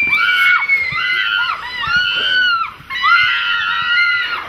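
High-pitched human screaming: four or five shrill screams in quick succession, with two voices screaming over each other during the first second or so.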